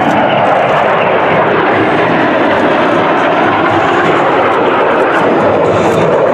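Dassault/Dornier Alpha Jet trainers of the Patrouille de France flying past in formation, their turbofan engines making a steady, loud jet roar.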